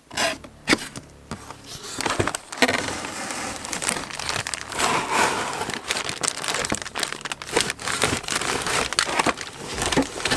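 A toy model kit box being opened and its plastic-wrapped contents handled: crinkling and rustling packaging with irregular small clicks and knocks.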